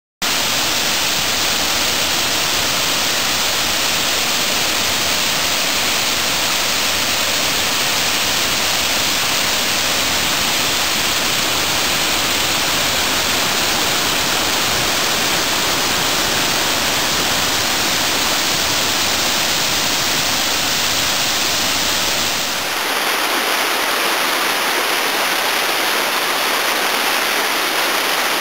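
Rushing water of a stream cascading about 7.5 m down a waterfall, a steady hissing rush. A little over three-quarters of the way through, the deeper part of the sound drops away and only the lighter hiss of the water goes on.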